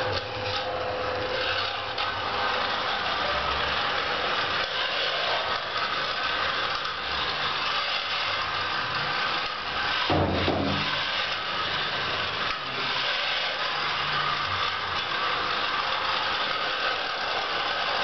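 Small homemade robot vacuum cleaner running, its motors and suction fan whirring steadily, with a brief louder low sound about ten seconds in.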